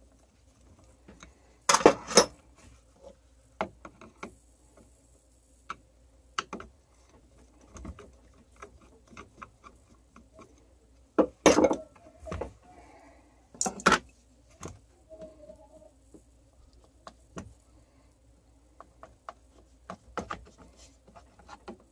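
Small hand-tool handling sounds: a screwdriver and the hammer drill's hard plastic housing clicking and rattling as the drill is worked apart, with a few louder sharp clacks about two seconds in and again around twelve and fourteen seconds.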